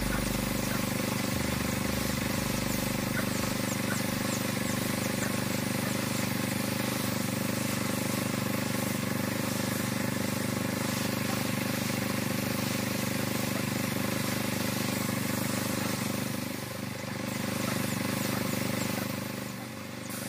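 A motor or engine running steadily at one even speed, easing off slightly a little over three-quarters of the way through.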